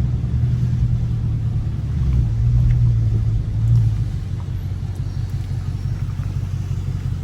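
Dodge Scat Pack's 6.4-litre HEMI V8 running under way with a steady low exhaust drone, swelling for a couple of seconds about two seconds in and then easing off.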